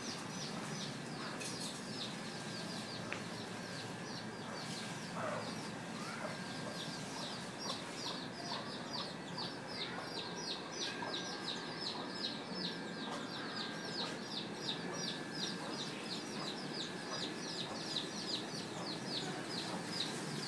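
Chicken chicks peeping: a long series of short, high, falling peeps, scattered at first and then coming steadily a few times a second from about seven seconds in.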